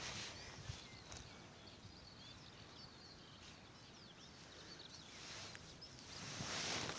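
Faint outdoor ambience with small birds chirping in the distance, and a swell of rustling dry grass near the end as the puppy pushes into it.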